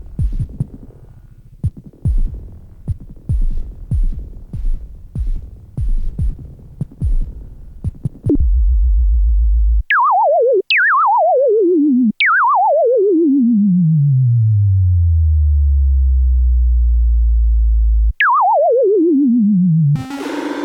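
Dreadbox Typhon monophonic analog synthesizer playing presets. First comes a rhythmic pattern of short, punchy bass notes. Then a low held drone and four notes whose pitch falls steeply from high to deep, one of them settling into a long low tone. A new, brighter patch starts near the end.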